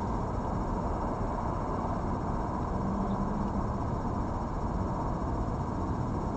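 Steady low rumbling background noise, with a faint short hum about three seconds in.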